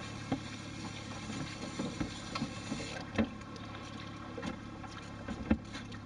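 A boat's outboard motor runs with a steady low hum. Several sharp knocks and clicks on the boat come through at irregular moments, the loudest near the end.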